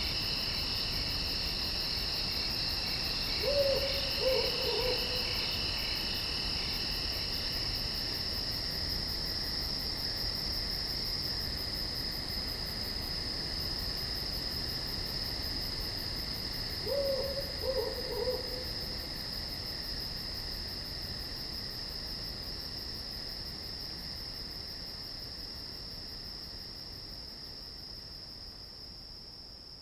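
Night ambience of crickets and other insects trilling steadily, with an owl hooting twice: a short run of hoots about three and a half seconds in and another about seventeen seconds in. The whole sound fades down near the end.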